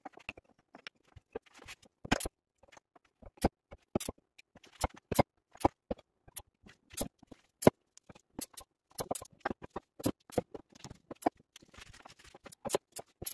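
Wooden blocks and cut corner pieces clicking and knocking on a wooden workbench as they are handled and set in place, in irregular sharp taps.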